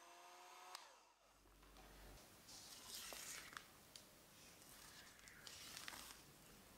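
An electric hand mixer beating thick creamed butter batter whines with a slightly rising pitch, then stops with a click about a second in. A spatula then scrapes around a glass bowl and squishes through the batter in two longer strokes, with a few light ticks against the glass.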